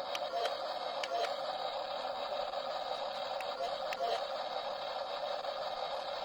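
Small electric gear motor of a toy RC backhoe loader running with a steady whine, with irregular sharp clicks of plastic parts.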